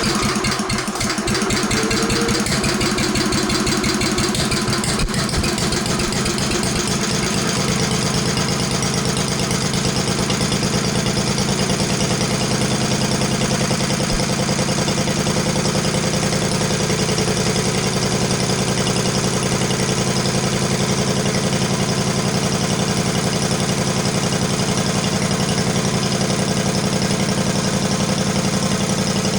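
Cast-iron Briggs & Stratton single-cylinder engine on a freshly rebuilt Flo-Jet carburetor catching at once and settling into a steady idle. It fires once the carburetor has been tapped to free a sticking needle and seat and let it fill with gas.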